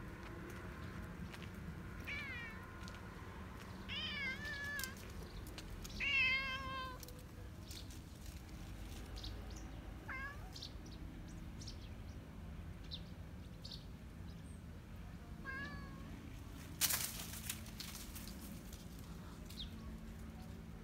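A cat meowing about five times in short calls with a wavering pitch, the loudest about six seconds in. Near the end there is one brief, loud burst of noise.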